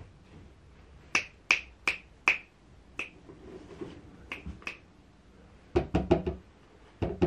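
Sharp dry clicks, five spaced out over about two seconds and then a few more close together. Near the end come quicker knocks and taps of a hand on a plastic cat flap.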